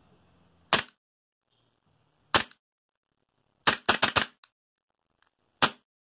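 Western Arms Para-Ordnance P14.45 gas blowback airsoft pistol firing, each shot a sharp crack of gas and cycling slide: two single shots, then a quick string of about five, then one more near the end.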